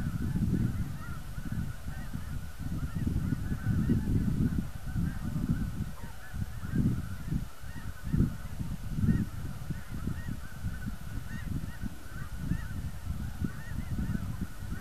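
A large flock of geese honking overhead, a dense, continuous chorus of overlapping calls. Louder low, gusty rumbling, wind buffeting the microphone, comes and goes underneath.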